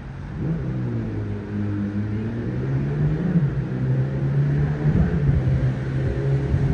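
Aircraft engines droning with a steady low hum, while gusty wind buffets the microphone.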